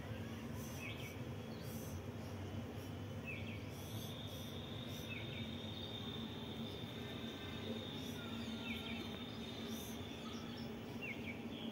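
Outdoor background: short high bird chirps every second or two, and a long steady high-pitched buzz from about four seconds in until near the end, over a constant low hum.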